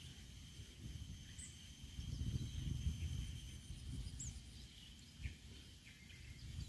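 Rural wetland ambience: a steady, high-pitched insect drone that thins out about halfway through, a few short bird chirps, and an uneven low rumble underneath.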